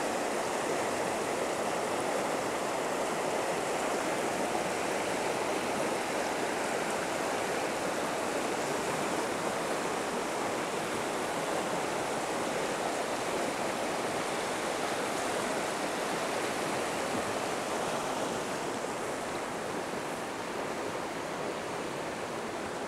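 Fast mountain river running over a shallow rocky bed: a steady rush of riffles and small rapids, easing slightly near the end.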